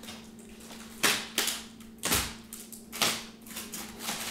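Plastic wrapping and packing tape on the packed exercise-bike parts, crackling and snapping in several short, sharp bursts as they are cut and pulled open.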